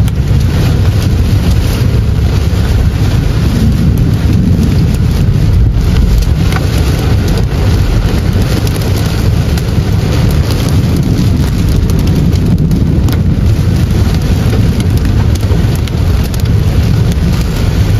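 Heavy rain pelting the windshield and roof of a moving car, heard from inside the cabin, over a steady low rumble from the car and road.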